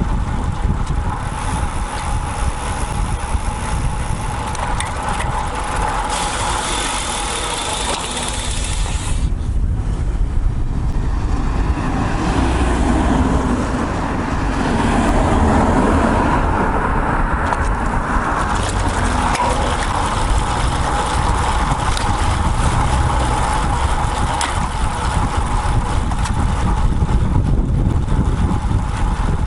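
Wind rushing over a bike-mounted action camera's microphone and tyre noise while riding a road bike in traffic, with a motor vehicle swelling past in the middle.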